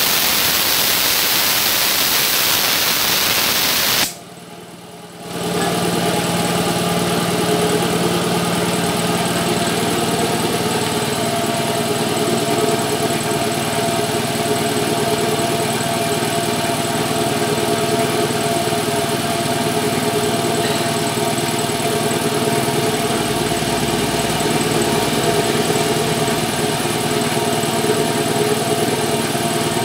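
Compressed air hisses loudly out of the hose of a Meiji 2 HP air compressor, then cuts off suddenly about four seconds in. A second later the compressor's electric motor and belt-driven piston pump start up and run steadily.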